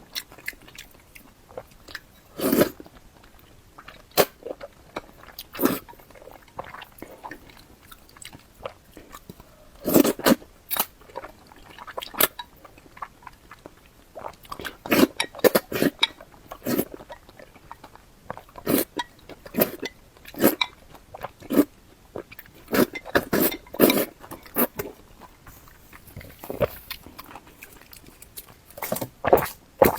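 Close-miked mouth sounds of someone eating sesame-paste potato noodles: irregular wet chewing and biting smacks, heavier in a few clusters.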